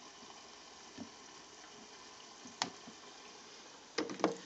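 Ground beef simmering quietly and steadily in a covered frying pan on the stove. A few faint clicks come through, with a small cluster of light knocks near the end.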